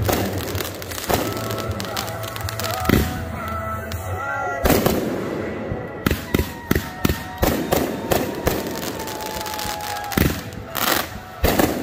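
Aerial fireworks going off: repeated sharp bangs and rapid crackling pops, with a quick run of pops in the middle and a cluster of loud bangs near the end, over music playing.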